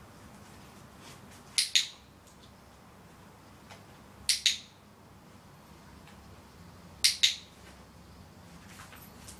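Handheld dog-training clicker clicked three times, each a sharp two-part click-clack, a few seconds apart: the marker signal rewarding the dog as it takes up the position.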